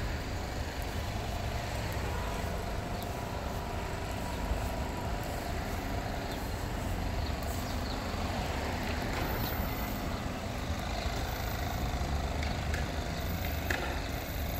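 City street ambience: a steady low rumble of road traffic, with faint engine hum from passing cars.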